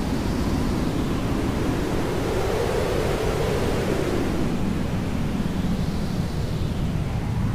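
Hair dryer blowing steadily, a continuous rushing noise whose tone slowly sweeps up and down.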